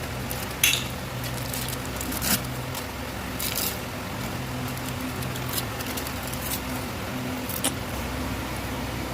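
A chocolate-bar wrapper crinkling and tearing in about five short crackly bursts as it is opened. Under it runs a steady low hum.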